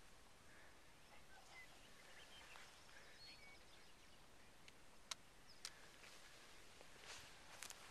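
Near silence: faint open-air hiss with a few short, faint bird chirps in the first half and a few sharp clicks in the second half.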